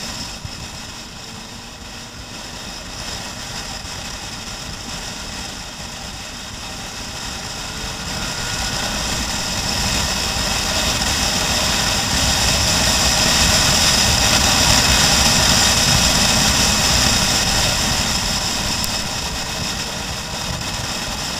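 Motorcycle under way, heard from the bike itself: the engine running with a constant rush of wind and road noise, growing louder toward the middle as the bike picks up speed and easing off again near the end.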